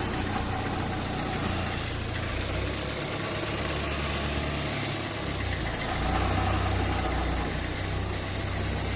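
Ford Escape's 1.6-litre EcoBoost engine idling steadily, a little louder for a couple of seconds about six seconds in, while the freshly rebuilt 6F35 automatic transmission is tested in gear.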